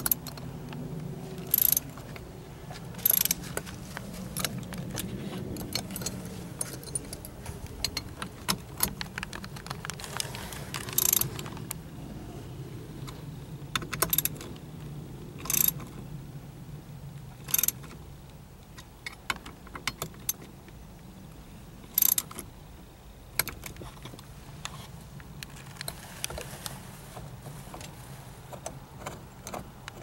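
Hand wrench and steering wheel puller clinking and clicking as the puller's bolts are turned to draw the steering wheel off its shaft: sharp metallic clicks every second or two, some louder than others.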